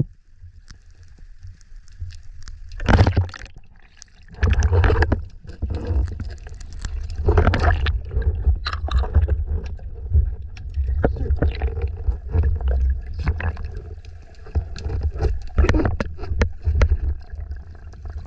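Underwater sound heard through a camera's waterproof housing: a low rumble of water moving past the housing, with gurgling, bubbles and small clicks, swelling in loud washes about three and seven seconds in.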